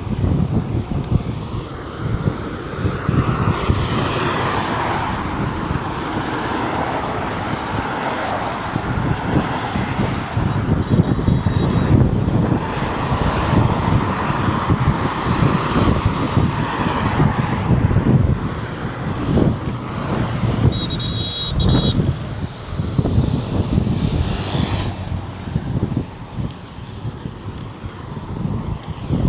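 Road traffic on a highway: cars and other vehicles passing one after another over a steady low rumble. A brief high-pitched beeping comes about two-thirds of the way through.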